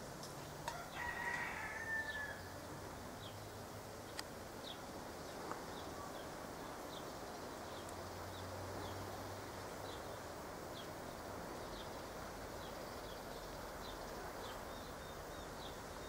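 Faint garden ambience: a steady background hum of cicadas with short high chirps repeating every second or so. About a second in, a distant bird call comes in briefly, gliding down in pitch.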